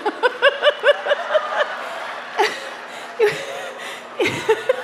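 A woman laughing into a microphone: a quick run of high 'ha-ha-ha' giggles in the first second and a half, then a few scattered chuckles and breaths.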